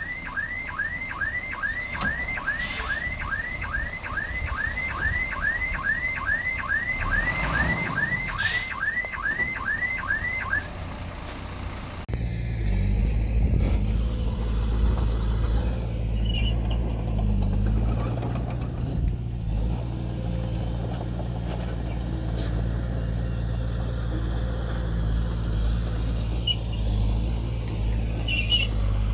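A reversing alarm chirps rapidly, about two to three times a second, over heavy-equipment noise for the first ten seconds. About twelve seconds in the sound changes abruptly to a diesel engine running steadily at a low, even hum.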